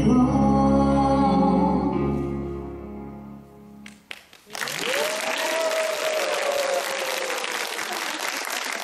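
A sung waltz fades out over the first few seconds. About halfway through, applause starts and runs on, with one long cheer over it that rises and then slowly falls.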